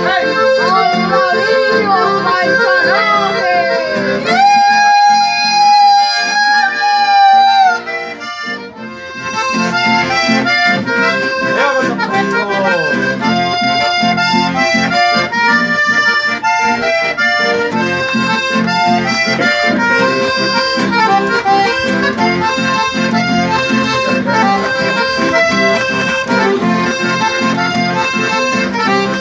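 Chamamé played on diatonic button accordions, with a nylon-string guitar strumming along. About four seconds in the accordions hold a long chord that bends down and breaks off near eight seconds; after a brief dip the rhythmic tune carries on.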